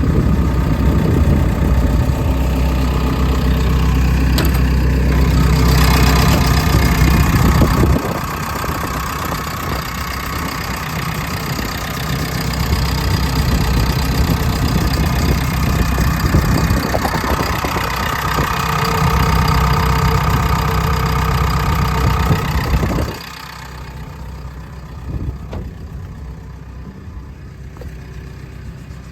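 JCB JS130 tracked excavator's diesel engine running, loud with a strong low note at first. The note changes about eight seconds in and a steady mid-pitched tone sits over it. About twenty-three seconds in it drops suddenly to a quieter idle.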